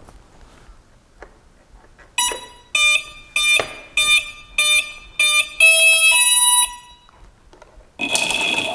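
Brushless weapon motors sounding their ESC start-up and arming tones: six short beeps about 0.6 s apart, then a longer multi-note sequence. Near the end the two motors briefly spin up with a harsh buzz, fighting against each other on the shared weapon belt.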